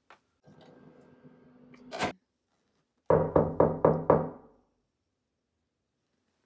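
Knocking on a door: a quick run of about five raps, roughly four a second.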